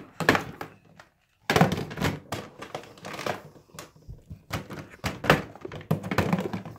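Plastic toy kitchen being handled: a run of knocks and clatters as the toy oven door and its rack are pulled open and toy food is pushed inside, the loudest knock about one and a half seconds in.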